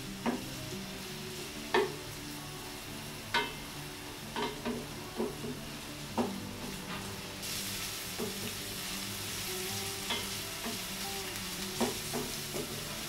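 Diced onions sizzling in oil in a stainless steel pan while a wooden spatula stirs them, knocking and scraping against the pan several times. The sizzle grows louder about halfway through.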